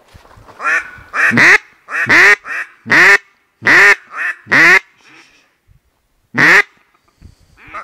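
A duck quacking loudly close by: a run of about a dozen harsh quacks, several in quick pairs, then a pause and one last quack about six and a half seconds in.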